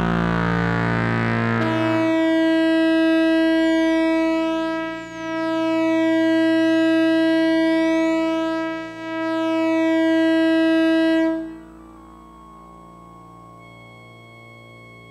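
Synthesizer running a Krell patch: long sustained electronic tones over a low drone, swelling and fading with two brief dips, with faint pitch glides sweeping up and down through the middle. About eleven seconds in the loud note dies away, leaving a quieter held tone.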